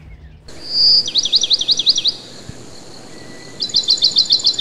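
A songbird singing: a held high whistle, then a run of about seven quick down-slurred notes, and after a short pause a faster run of short repeated notes. It starts abruptly about half a second in.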